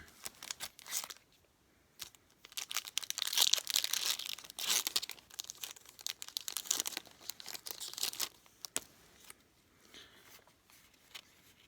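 Foil Yu-Gi-Oh! booster pack being torn open and its wrapper crinkled, with a dense crackling stretch from about two to seven seconds in, then scattered light clicks.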